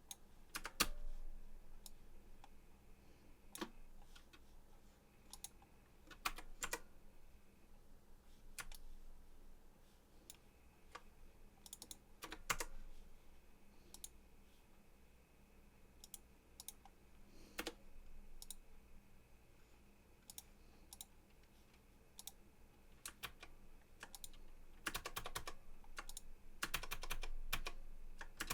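Computer keyboard keys tapped sporadically, single keystrokes a few seconds apart, with quick runs of typing near the end.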